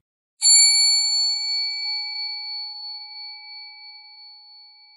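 A single bell-like chime sound effect: one ding struck about half a second in, its ringing tone fading slowly over several seconds.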